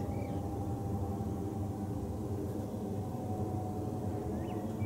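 Steady jet noise from a Boeing 777-200 freighter's two engines passing overhead, with a faint tone that slowly falls in pitch. A bird chirps at the start and again near the end.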